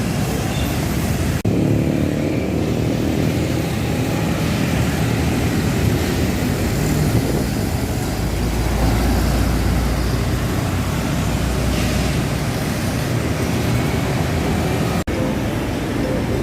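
City street traffic at a bus stop: vehicles running past in a steady noise, with a deep heavy-vehicle engine rumble swelling in the middle. Two short dropouts break the sound.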